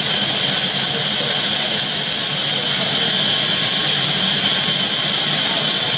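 Sawmill saw machinery running steadily: a loud, even high hiss over a low hum, with no break.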